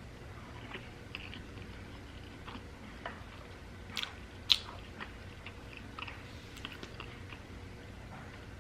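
A person chewing food close to the microphone, with scattered small wet mouth clicks and smacks. One sharp click about halfway through stands out as the loudest sound.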